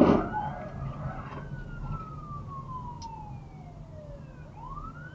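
A loud crash of impact right at the start, a vehicle colliding with a fire engine at an intersection. The fire engine's wailing siren then slides slowly down in pitch and rises again near the end, over the low hum of the dashcam car.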